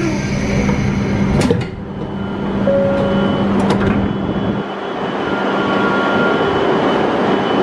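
Railway sounds around a Hokuriku Shinkansen train at a station: a steady hum that stops about four and a half seconds in, a few sharp clicks, and short electronic tones.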